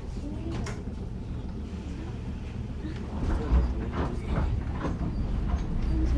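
Ueda Kotsu's Moha 5253 'Marumado' electric railcar getting under way from a station, heard from aboard: a steady low rumble that grows stronger about three seconds in, with a few faint clicks.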